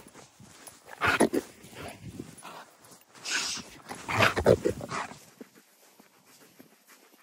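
A lurcher close to the microphone, breathing and panting hard in three loud breathy bursts: about a second in, about three seconds in, and the loudest between four and five seconds. After that only faint footsteps on the grass are heard.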